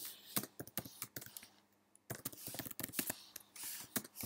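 Computer keyboard typing: quick, irregular keystrokes with a short pause a little before halfway, then fast typing again.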